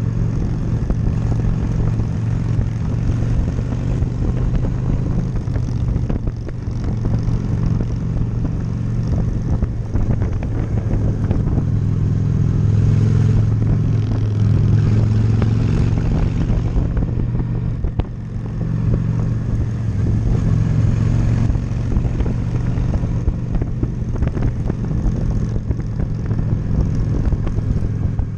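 Honda Shadow V-twin cruiser motorcycle engine running steadily under way, with wind rushing past the camera. The engine swells louder for a few seconds mid-way, then eases off briefly about eighteen seconds in, as with a throttle lift or gear change.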